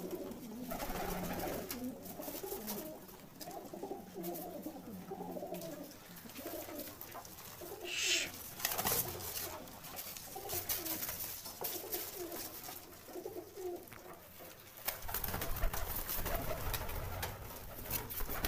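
A loft full of domestic high-flying pigeons cooing, many calls overlapping throughout. There is a brief noisy burst about eight seconds in, and a low rumble joins during the last few seconds.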